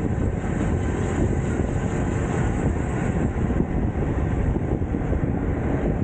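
Steady wind rumble on the microphone with road noise from a moving bicycle ride, heaviest at the low end and unchanging throughout.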